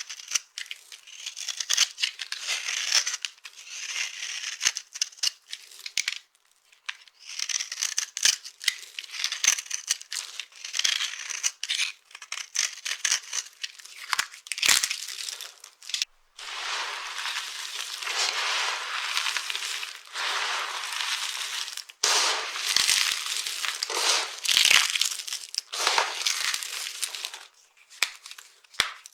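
Dry soap being crushed and crumbled: crisp crunching and crackling made of many small sharp snaps. It comes in short runs for the first half, then turns into denser, steadier crunching for about ten seconds before thinning out near the end.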